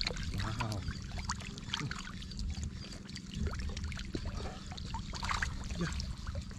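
Shallow muddy water splashing and sloshing in many small, irregular splashes as fish thrash in it and hands grope through it.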